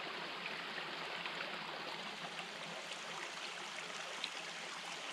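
Shallow mountain stream running over stones, a steady trickling rush, with a few faint ticks of raindrops landing on the water.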